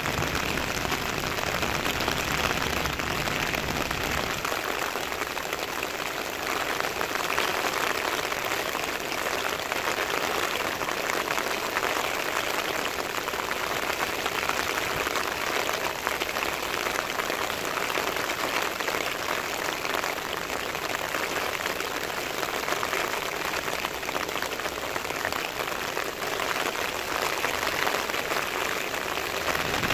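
Heavy rain falling steadily, pattering on the wet road and surrounding surfaces.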